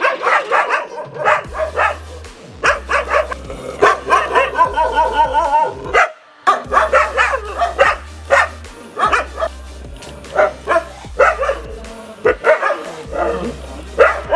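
Rajapalayam dogs barking over and over in their kennels, short sharp barks in quick runs, over background music with a steady low bass line.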